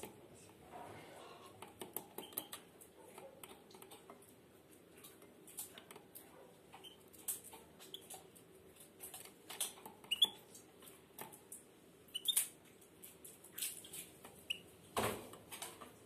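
Caged European goldfinch giving a few short, faint chirps now and then, amid scattered soft clicks and taps; one louder knock about a second before the end.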